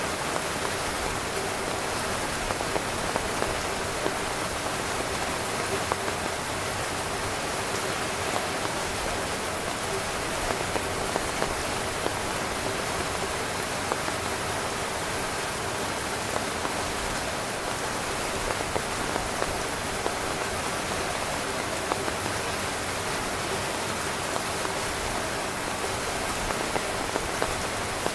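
Heavy rain drumming steadily on a tent, a dense hiss with many sharper individual drop taps.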